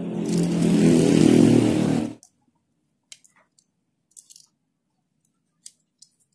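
Foam sponge being squeezed and rubbed by hand close to the microphone, a loud crunchy squeaking that stops abruptly about two seconds in. Then a few faint snips of scissors cutting the foam.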